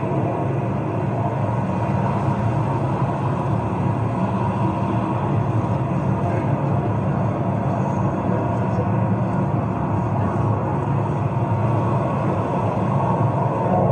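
Steady rumble of motorcade vehicles and outdoor ambience, played through a television speaker.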